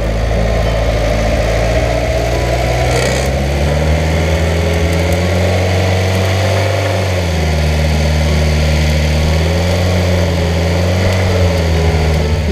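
Engine of a paragliding tow winch running steadily under load while it tows a paraglider up on its line, its pitch shifting a few times.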